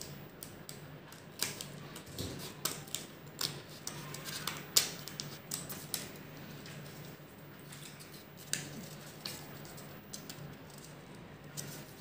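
Small scissors snipping through a sheet of paper, cutting out a shape: a quick run of sharp snips through the first half, then only a few scattered snips.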